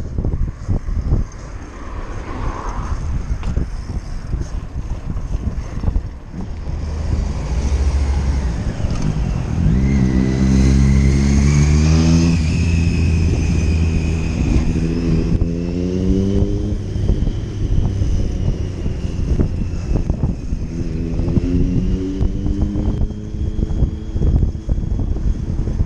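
A motor vehicle's engine accelerating, its pitch rising three times in steps like gear changes, starting about ten seconds in, over a steady low rumble and wind noise.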